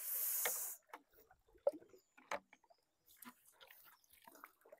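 A short splash as a bamboo pole is worked in river water from a bamboo raft, followed by scattered small knocks and drips.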